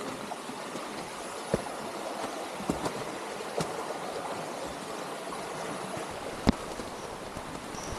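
Jungle river rushing steadily, with a few short sharp clicks or knocks, the loudest about six and a half seconds in.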